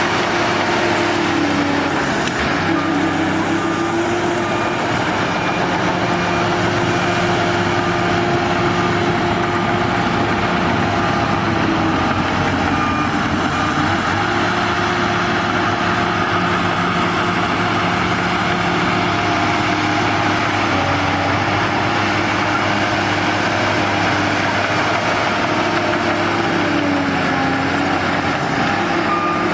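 Shantui DH17 bulldozer's diesel engine running steadily under work. Its note dips and recovers three times, with a faint backup alarm beeping.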